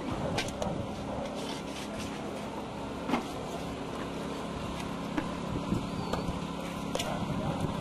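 Rubble being cleared by hand: scattered knocks and clinks of bricks and debris over a steady low engine hum.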